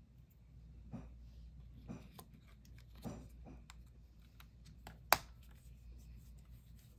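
Faint, scattered plastic clicks and rustles as an Olympus mju-II compact 35 mm film camera is handled, with one sharp click about five seconds in.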